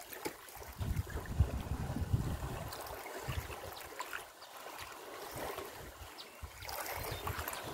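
Outdoor water ambience of elephants bathing in a waterhole: a steady hiss of water with faint splashes, broken by low rumbling gusts of wind on the microphone about a second in and again near the end.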